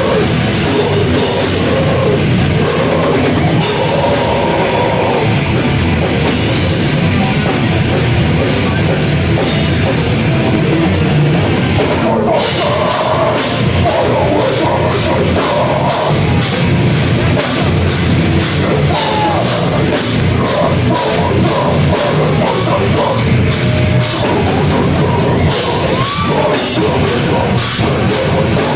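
A deathcore band playing live: heavy distorted guitars and bass over fast, dense drumming, with harsh screamed vocals. It is loud throughout, recorded from the crowd.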